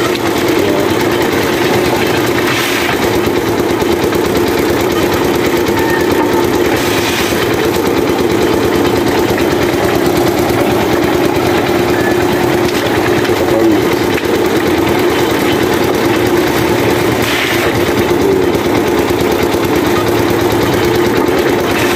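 Small engine running steadily at an even pitch, driving an abaca fibre stripping machine while leaf strips are pulled through it. A few short scratchy rasps rise over the engine at intervals.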